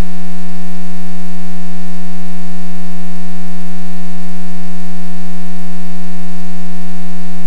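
A loud, steady electrical hum with a row of overtones on the cockpit intercom recording, holding one pitch throughout.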